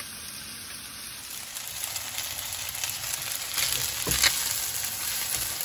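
Fish, zucchini and cream sizzling in a frying pan while cooked pasta is added and tossed through with tongs; the sizzle grows louder after about a second and a half. A sharp knock sounds about four seconds in.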